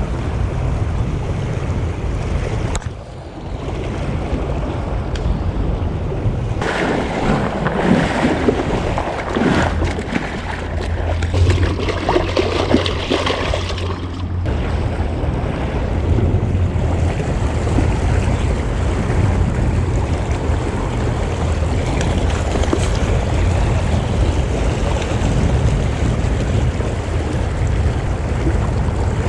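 Rushing water of a shallow salmon creek with wind buffeting the microphone. From about seven to fourteen seconds in, louder splashing close by as a hand goes into the water.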